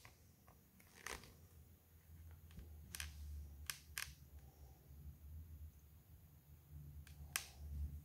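Faint handling noise from a hardback picture book being held up and shifted in the hands: a few soft clicks and taps, about five, spread through the pause, over a low rumble.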